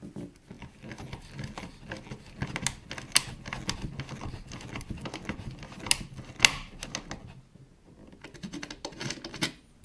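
Ratcheting ring spanner clicking in quick runs as it is swung back and forth, turning a bolt locked with two nuts that drives an M5 threaded insert into an oak board, with a few sharper metal clicks along the way.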